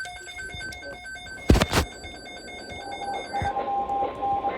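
Weather radio receiver sounding an emergency alert. A rapid pulsing electronic tone stops about a second and a half in with a loud thump. Then, over radio hiss, the steady NOAA Weather Radio 1050 Hz warning tone starts about three seconds in, with a second, lower tone beeping on and off.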